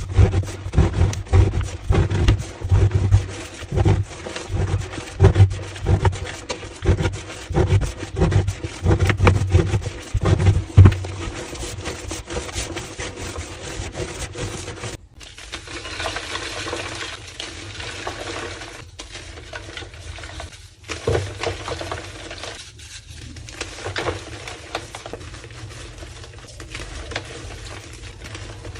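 Homemade gym chalk slabs crushed by hand with a squeaky crunch, in repeated loud squeezes about twice a second. About halfway through the sound changes suddenly to quieter crumbling and rubbing of the chalk.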